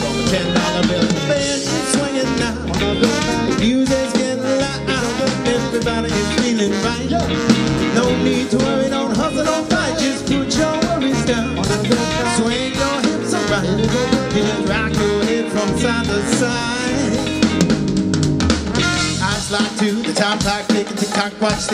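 Live brass funk band playing a steady, danceable groove: trumpet and trombone, drum kit, percussion and electric guitar under a bouncing bass line, with a lead singer's voice on top.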